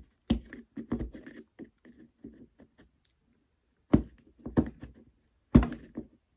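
A knife blade carving and scraping melted plastic out of a cordless drill's plastic housing half, heard as a string of sharp scrapes and clicks. The strokes come in groups at the start, about four seconds in and near the end, with a quiet stretch between.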